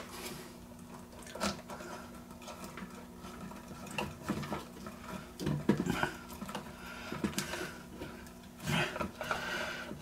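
Hands handling and twisting electrical wires at a wall switch box: scattered small clicks and rustles of copper wire, insulation and plastic parts, over a faint steady hum.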